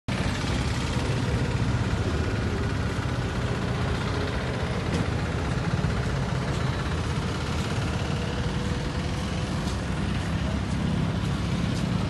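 Steady rumble of road traffic passing on a bridge.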